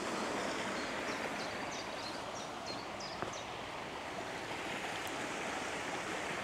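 Steady rush of water pouring through a canal lock overflow, with a run of short high chirps about a second in.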